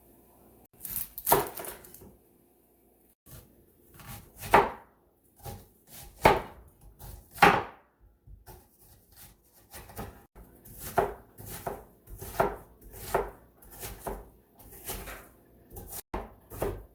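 A knife chopping an onion: a series of sharp, unevenly spaced strokes, about one or two a second.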